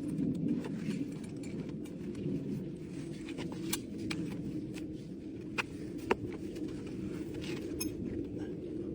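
Bricks clinking and knocking as they are handled and stacked, a few sharp clicks standing out near the middle, over a steady low rumble.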